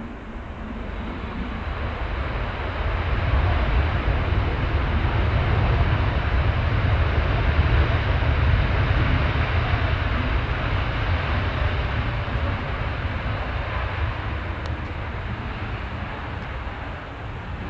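Jet airliner passing by: a broad engine roar with deep rumble that swells to its loudest about halfway through and then fades away.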